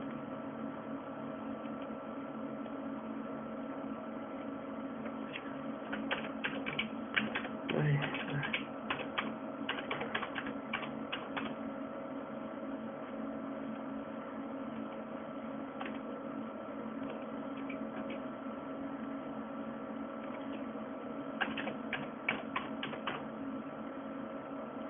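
Typing on a computer keyboard in two bursts, a longer one of about six seconds and a short one near the end, over a steady electrical hum.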